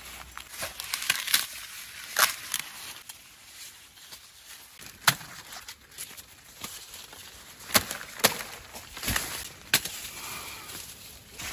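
Ears of corn being snapped off their stalks by hand, a series of irregular sharp cracks amid the rustle of corn leaves.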